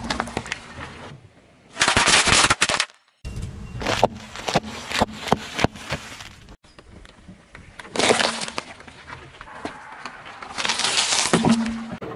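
A car tyre rolling over and crushing packaged candy and bags of chips, heard as several separate bursts of crunching and crackling with sharp pops as the packets burst.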